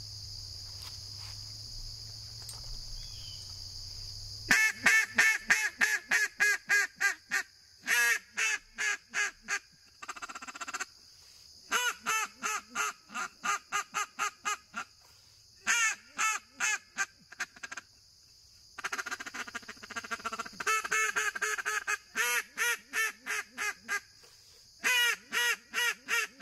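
Gillow Outdoors Weekend Warrior double-reed polycarbonate duck call blown in runs of quick quacks, about four a second, each run starting loud and trailing off, the first beginning about four seconds in. Crickets trill steadily behind.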